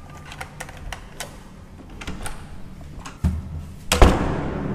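Hotel room door with a keycard lock and lever handle being worked: scattered light clicks, then a thud a little after three seconds in and a louder bang about a second later.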